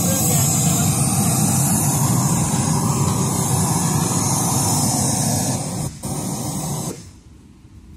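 Test noise played through the PA speakers: a loud, steady, hiss-like rush over the whole range from bass to treble, muted abruptly about seven seconds in after a brief dip just before.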